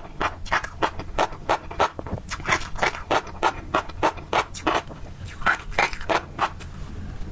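Close-miked chewing of tobiko fish roe: crisp crunching and popping of the small eggs between the teeth, in quick bites about three a second with a couple of brief pauses.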